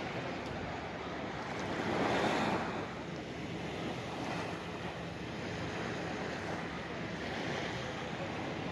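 Shallow sea water lapping and washing around a camera held at the water's surface, a steady swish with one louder wash about two seconds in.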